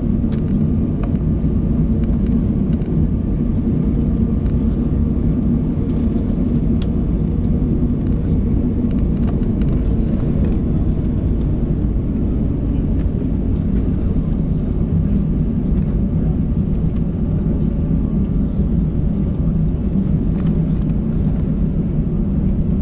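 Steady low rumble heard inside the cabin of an Airbus A350-900 taxiing onto the runway, its Rolls-Royce Trent XWB engines at low thrust, with a few faint clicks and rattles.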